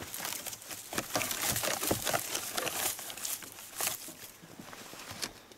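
Dry weeds and brush rustling and crackling, with many sharp twig snaps, as something pushes through a snowy brush pile. The crackling is busiest in the first few seconds and thins out near the end.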